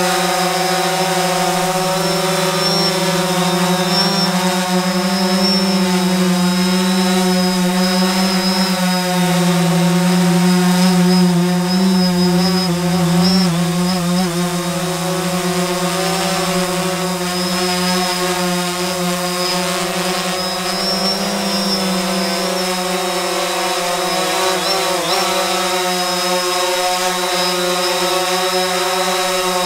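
DJI Phantom 4 Pro quadcopter in flight: its propellers and motors give a steady buzzing whine that drifts slightly in pitch and grows a little louder around the middle.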